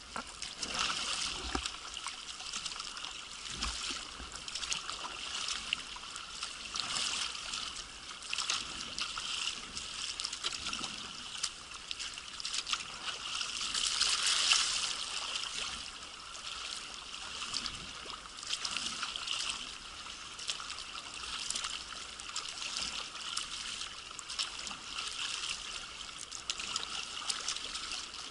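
Sea water splashing and rushing around a sea kayak in breaking surf, rising and falling unevenly, loudest about halfway through.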